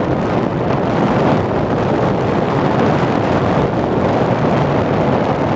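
Wind and motor noise of a radio-controlled plane in flight, heard through its onboard camera's microphone: a loud, steady rush without breaks.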